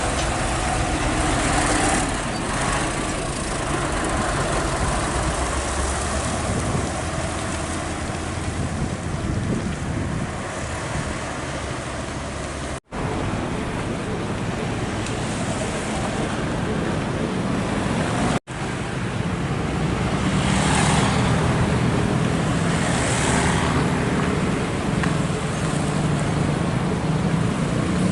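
Road traffic with heavy vehicles' diesel engines running and passing, a steady rumble with a low hum in the second half and two brief hissing swells near the end. The sound cuts out abruptly twice for an instant in the middle.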